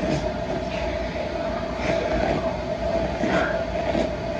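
Hair being combed out, a few brushing strokes about a second and a half apart, over a steady background hum.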